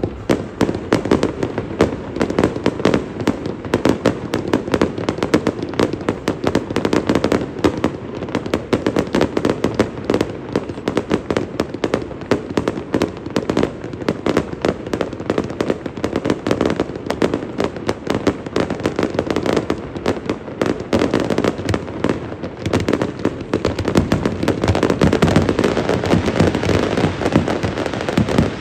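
Fireworks display: an unbroken barrage of rapid bangs and crackles from bursting shells, growing louder over the last few seconds.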